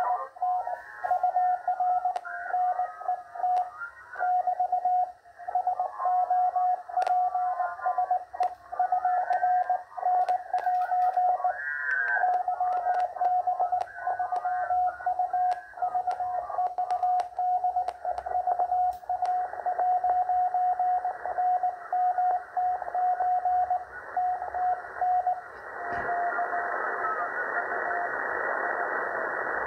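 Shortwave receiver audio from a RadioBerry software-defined radio tuned to the 40-metre amateur band's CW segment: a Morse code signal heard as a beat tone of about 700 Hz, keyed on and off over band static. Near the end the static grows louder and the tone weakens.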